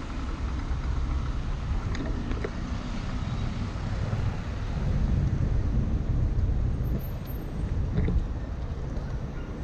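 Low rumble of wind on the microphone mixed with car traffic passing on a wet road, louder for a couple of seconds about halfway through.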